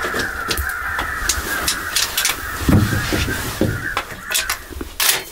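Crows cawing, many at once, dying away about four seconds in, with a few sharp clicks and knocks near the end.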